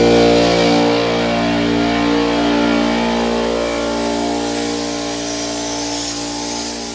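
Small Ridgid portable air compressor's motor and pump running steadily as it builds tank pressure, growing gradually fainter. A hiss comes in near the end.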